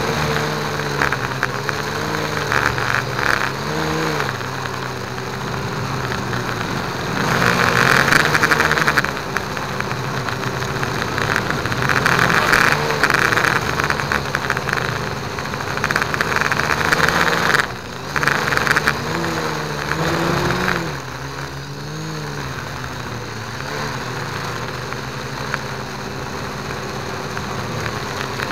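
FPV drone's electric motors and propellers whining, their pitch rising and falling with the throttle, over a rush of wind on the onboard camera's microphone. The sound briefly drops out about 18 seconds in.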